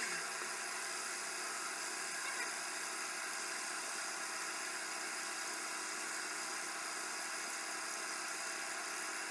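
Wood lathe running at steady speed while its spinning work is denibbed with 600-grit abrasive: an even motor whir with a sanding hiss, switched on abruptly at the start.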